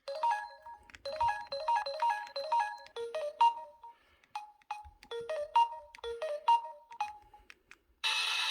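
Samsung Anycall mobile phone ringtone playing: a melody of short, bright, clipped notes in quick phrases with brief gaps. About eight seconds in it switches abruptly to a dense, loud, full-range passage.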